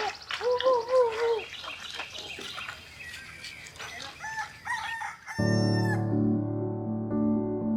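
A rooster crows once with an arched call, among clucking chickens and chirping small birds. About five seconds in, these cut off and gentle piano music begins.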